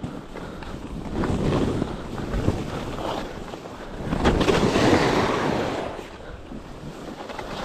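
Skis scraping over packed snow through a run of turns, with wind buffeting the microphone. The scraping swells and fades with each turn, loudest about four to six seconds in.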